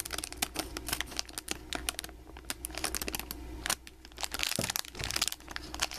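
Scissors snipping through a crinkly foil blind bag, with the bag crackling as it is cut and handled: a quick run of small clicks, a brief pause about two seconds in, then more crinkling.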